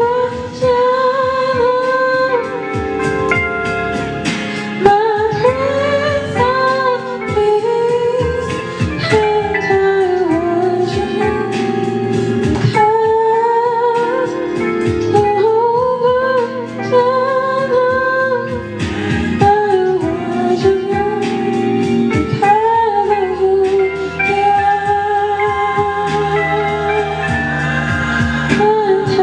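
Worship music: a singer holds long, wavering notes over instrumental accompaniment.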